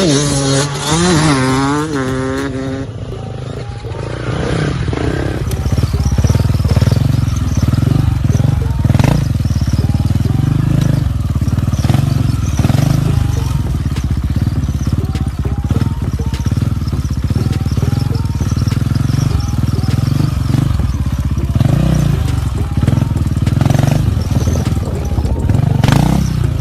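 Off-road motorbike or ATV engines running loudly, with quick rising-and-falling revs in the first few seconds, then a steady low engine drone under way.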